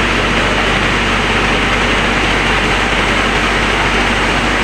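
SB30 rice mill and its bucket elevator running under load: a steady mechanical din with a constant low hum and no change in pace.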